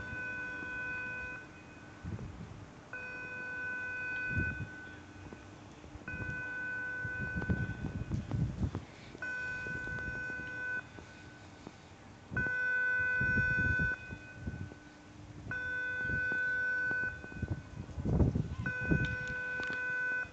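Swing footbridge's electronic warning signal sounding in long, steady beeps of about a second and a half, repeating every three seconds, seven times. Gusts of wind rumble on the microphone in between.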